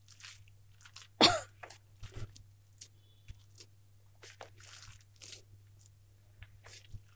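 Hand mashing and mixing chopped mushrooms, onion and boiled potato on a plate: soft, irregular squelching strokes, with one loud cough about a second in.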